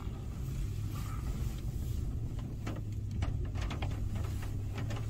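Off-road 4x4 engine running steadily at low revs while crawling. From about two and a half seconds in, a rapid series of clicks and creaks sounds over it.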